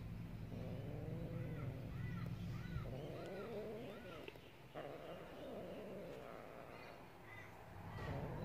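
Two cats mating, with a low, wavering, drawn-out yowl from the pair. A bird calls a run of short repeated notes, about two a second, from about a second in to about four seconds in.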